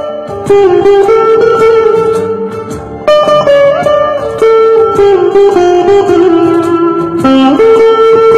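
Saraswati veena played solo: a plucked melody of ringing, held notes, several of them bending up in pitch from string deflection on the frets.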